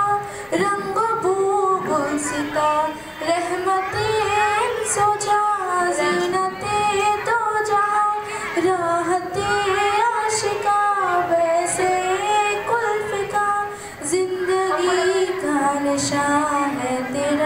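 A young girl singing a naat solo into a microphone, a single melodic voice with long held, ornamented notes that waver and glide between pitches.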